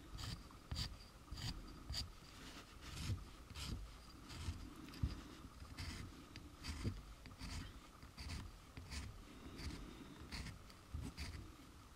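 Sanding block rubbing on a small plastic model-kit belt-and-pulley part, rounding the belt: a series of short, faint scratchy strokes at an uneven pace.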